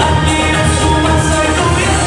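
Loud music playing, with some singing.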